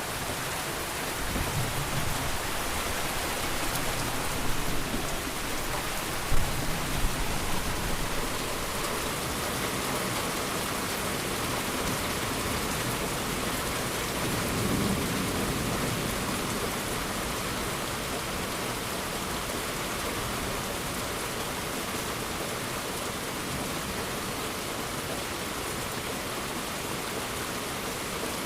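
Steady heavy rain falling on the ground, with rolls of thunder rumbling in the first several seconds, including one sharp crack about six seconds in, and another low rumble about halfway through.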